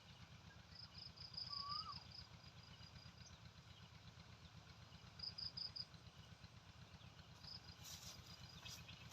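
Near-silent outdoor ambience with faint bird calls: one short upslurred whistle about two seconds in, and several brief bursts of rapid, high chirping.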